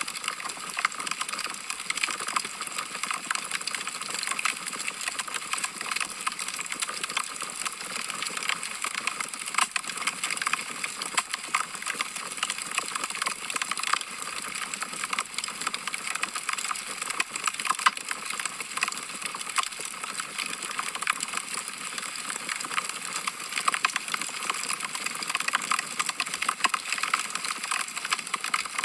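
Log fire crackling in a fireplace: many small irregular pops and snaps over a steady hiss.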